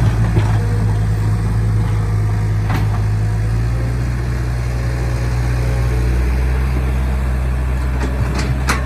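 Excavator engine running steadily at a constant speed, with a sharp click about three seconds in and a few more clicks near the end.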